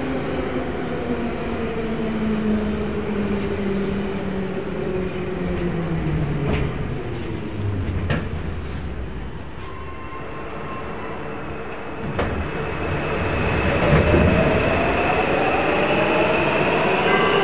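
Vagonmash 81-series metro train braking into a station, heard from inside the car: its motor whine falls steadily in pitch as it slows. After a quieter stretch and a sharp click about twelve seconds in, a new whine rises in pitch near the end while the train stands at the platform.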